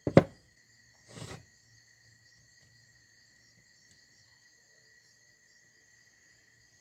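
One sharp knock at the start and a brief scuffing sound about a second in, from parts being handled at the workbench, then only faint steady cricket chirring.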